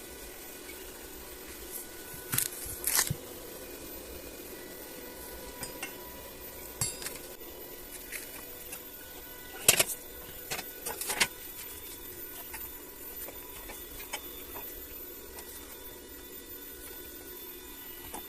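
Scattered metal clinks and knocks from steel parts and tools being handled during welding work, over a steady hum. The loudest come in a pair about two to three seconds in and a cluster around ten seconds in.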